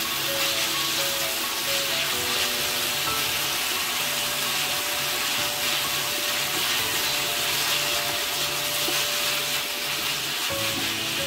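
Tofu, basil leaves and dried chilies sizzling in hot oil in a nonstick frying pan, freshly seasoned with dark soy sauce, as they are stirred with a plastic slotted spoon. Background music plays along.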